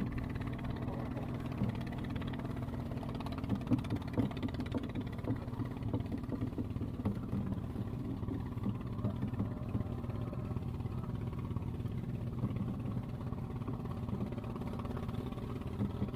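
An engine running steadily, a low even drone, with a few faint clicks over it.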